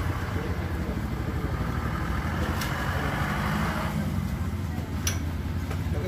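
A running engine's steady low hum, with two short sharp clicks, about two and a half and five seconds in.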